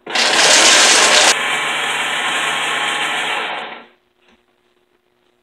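Vita-Mix Total Nutrition Center blender grinding walnuts and almonds. It starts abruptly and runs loud for about a second, drops a little and runs steadily, then winds down and stops about four seconds in.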